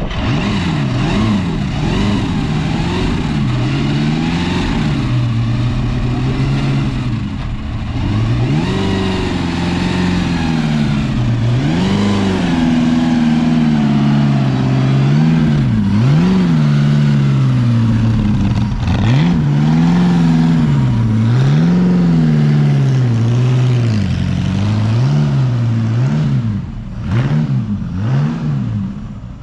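Bugatti Type 35B replica's straight-eight engine revving up and down over and over as the car pulls away and drives past. It fades near the end as the car moves off.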